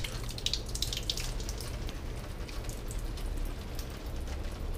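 Tap water running and splashing as apples are washed by hand in a tiled sink, with an irregular patter of drips and splashes.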